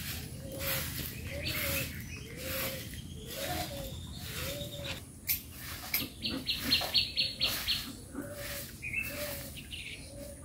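Soft grass broom sweeping a packed-earth yard in steady strokes, about one swish a second. A bird chirps a quick run of notes about midway, and once more briefly near the end.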